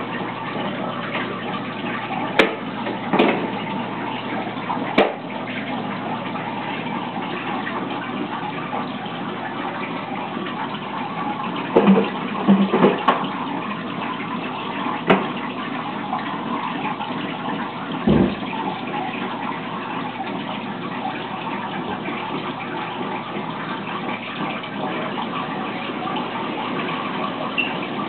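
Aquarium water running steadily, as a filter's return stream pours into the tank, with a handful of short, irregular knocks and clicks over it.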